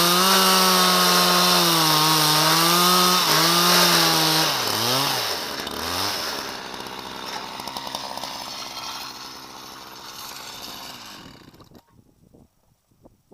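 Husqvarna 372 XPG chainsaw on a chainsaw mill, ripping lengthwise through a dry, hard ash log at high revs with the pitch wavering under load. About four to five seconds in, the revs drop away and it runs at idle, then the engine cuts out near the end, followed by a few faint knocks.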